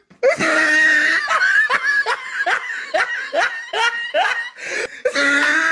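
A person laughing hard: a high squeal, then a run of short "ha" bursts falling in pitch at about two to three a second, then another squeal near the end.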